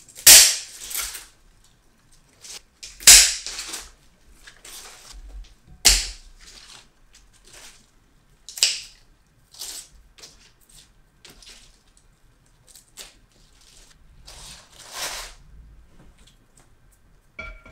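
Scissors snipping through purple basil stems, a sharp snip every few seconds, with the rustle of leafy stems being handled between the cuts.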